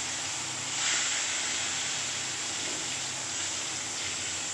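Turmeric-coated eggplant slices frying in hot oil in an aluminium kadai, a steady sizzle. It swells about a second in as more slices go into the pan.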